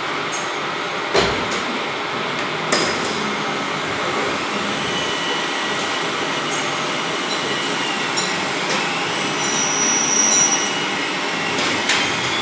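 Steady machine-shop running noise from CNC machinery, broken by a few sharp knocks and clicks: one about a second in, another near three seconds, and a last near the end.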